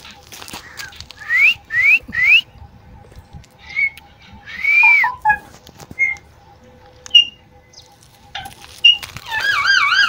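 Alexandrine parakeets whistling and calling: three quick rising whistles about a second in, a few short chirps and one arched whistle in the middle, and a loud warbling whistle near the end.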